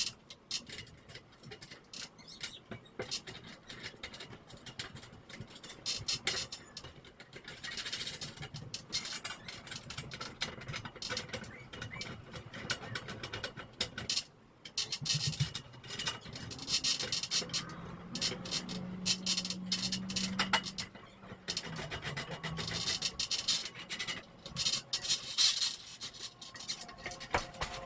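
Irregular scraping, rattling and clicking of metal hardware being handled during a garage door opener installation, with a steady low hum for a few seconds past the middle.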